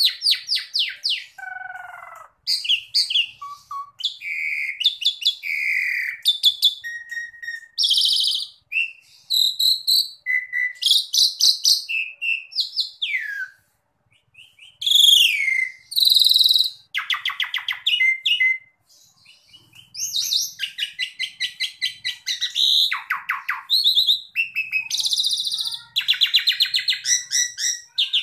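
Asian pied starling (jalak suren) singing loudly in a long, varied song. Short phrases of whistles, gliding notes and fast rattling trills follow one another, with brief pauses about halfway through and again about two-thirds of the way through.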